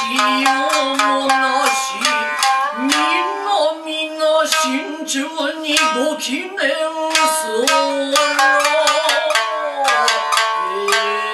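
Nagauta music: a shamisen plucked in quick, sharp strokes, accompanying a woman's long, wavering sung phrases.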